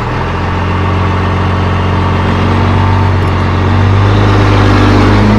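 Backhoe's diesel engine running loud and steady under load, picking up speed and volume about four seconds in.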